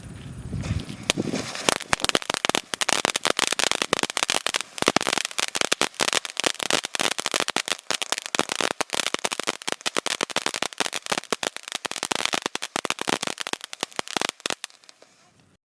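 Sky King Tri Colour Fountain, a ground firework fountain with a crackling effect, burning: a dense, fast run of sharp crackling pops that builds up after about a second and a half, then thins out and stops near the end.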